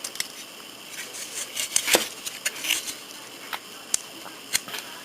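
Small plastic model-kit parts being handled on a work bench: irregular light clicks and taps, with a few brief rustles.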